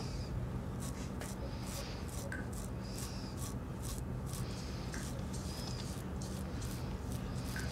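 Soft rhythmic rubbing strokes about once a second over a steady low hum, with faint scattered clicks.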